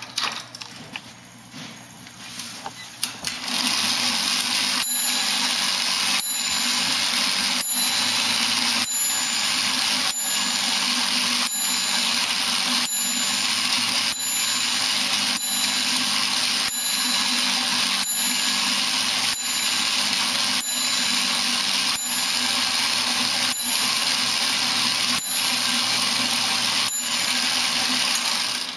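Antique coin-op moving model's works running with the case open: after a few handling clicks, its small 3-volt dynamo motor starts whirring steadily about three seconds in, with sharp wooden cam knocks every second or two and brief small bell dings, then cuts off suddenly at the end.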